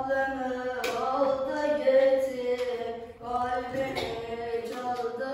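A boy singing solo and unaccompanied, in long held, ornamented notes, with a short pause for breath about three seconds in.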